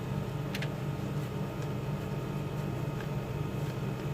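Steady low hum, with one faint click about half a second in.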